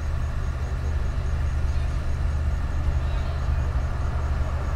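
Steady low engine drone of a train idling at a station platform, with no change as the approaching train is still far off.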